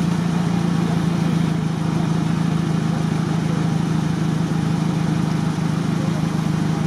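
Off-road 4x4's engine idling steadily at one constant pitch.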